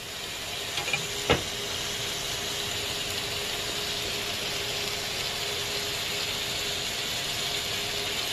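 Shrimp and baby carrots sizzling steadily on a hot ridged grill pan, with a single sharp click about a second in.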